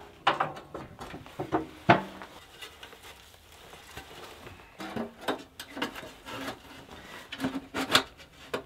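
Metal stovepipe sections knocking, clinking and scraping as they are handled and pushed onto a small cast-iron wood stove's flexible pipe elbow: scattered knocks, a few with a short metallic ring, heaviest about two seconds in and near the end.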